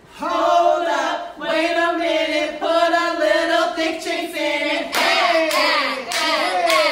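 Singing: long held notes for the first few seconds, then, from about five seconds in, a run of falling sung slides over steady rhythmic claps.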